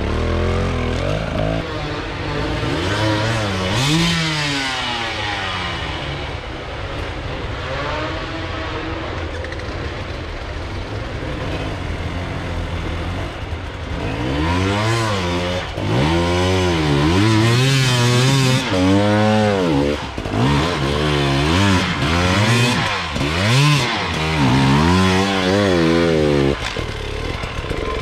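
Enduro motorcycle engines revving hard and repeatedly, the pitch surging up and dropping back again and again as the bikes labour up a steep hill climb. The revving grows louder and comes in quicker surges from about halfway.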